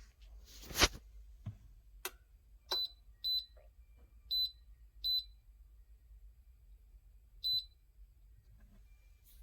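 A sharp knock about a second in, then five short, high electronic beeps at uneven intervals, the beeps of a gooseneck electric kettle's touch control panel as its buttons are pressed.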